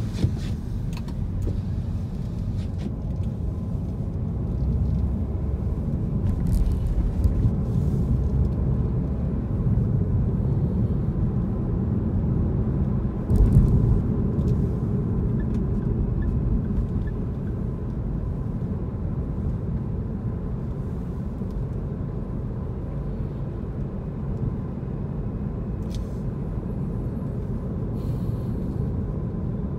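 Steady low rumble of a car driving, engine and tyre noise heard from inside the cabin, with a short louder rumble about halfway through.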